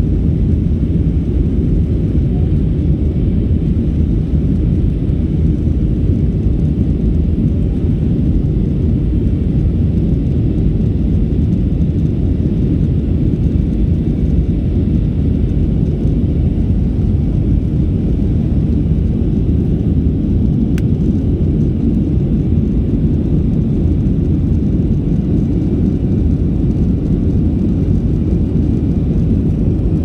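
Steady low rumble inside an airliner cabin in flight: engine and airflow noise, unchanging throughout.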